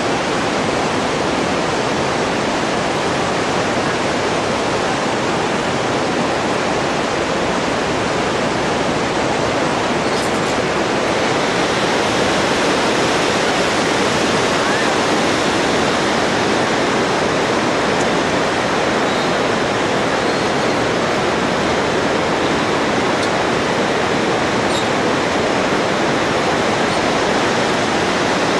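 Steady rush of a whitewater river in a gorge, an even, unbroken roar of water.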